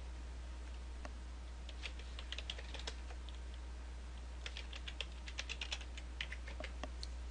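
Computer keyboard keystrokes: a short run of typing about two seconds in, as a username is entered, then a longer run from about four and a half seconds as a password is typed.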